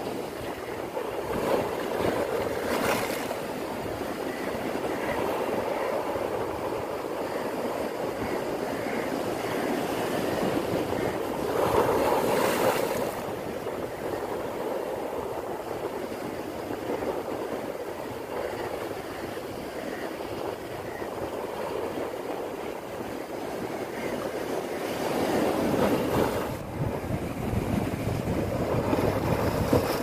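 Sea surf washing in over shoreline rocks, a steady rush of water that swells into louder surges about three seconds in, around twelve seconds in, and again near the end.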